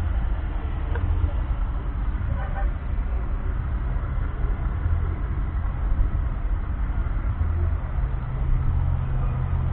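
Steady low rumble of an idling engine, unchanging throughout.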